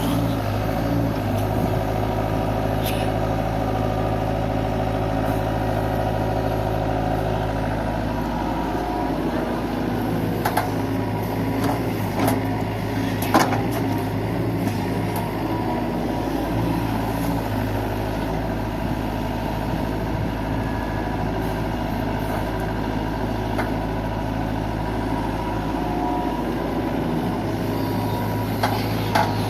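Diesel engine of a JCB 3DX backhoe loader running steadily under load, with a few sharp knocks around the middle.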